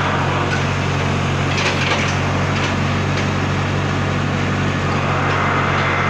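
Komatsu WB142 backhoe loader's diesel engine running steadily under hydraulic load as the backhoe arm is worked, with a few short clattering crackles about two seconds in.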